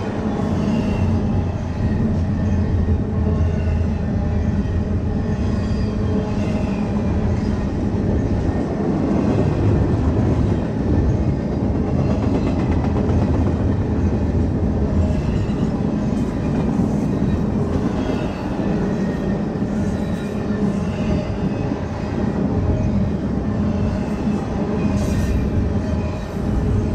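Double-stack intermodal well cars of a freight train rolling past: a steady rumble of steel wheels on the rails.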